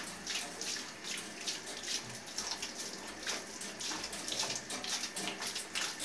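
Handheld shower head spraying water onto a wire bird cage and tiled floor: a continuous hiss of spray and splashing that flickers in loudness.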